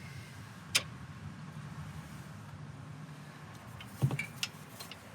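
Sharp metallic clicks and clinks of hand tools and bolts against metal while the muffler bolts are being fitted: one click about a second in and a quick cluster of them near the end, over a low steady hum.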